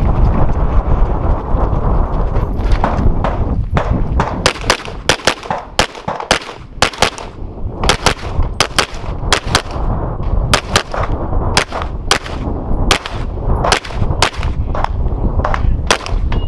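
Pistol fired again and again close to a head-mounted camera, in quick strings of sharp shots with brief pauses between them, dozens of shots in all. The shots begin a few seconds in, after a low rumble.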